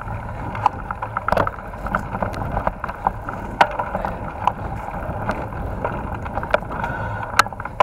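Mountain bike riding fast down a dirt forest singletrack: a steady low rumble of tyres on the trail, with frequent sharp clicks and knocks from the bike rattling over bumps. The loudest knock comes near the end.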